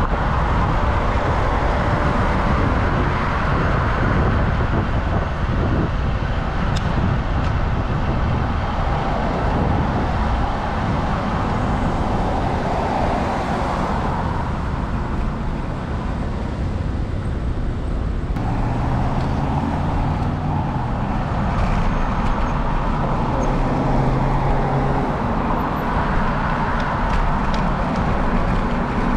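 Cars and trucks passing on a busy arterial road, heard over a steady low wind rumble on a bicycle-mounted action camera's microphone. Passing vehicles swell and fade every several seconds, and a deeper engine drone from a heavier vehicle sounds for a few seconds past the middle.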